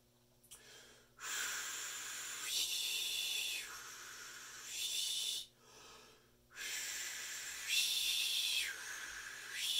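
A man blowing air through his mouth without whistling, two long breathy hisses. The pitch of the hiss rises and falls several times as his tongue lifts from an 'ooh' to an 'ee' shape and drops again, showing how raising the tongue narrows the airway for higher trumpet notes.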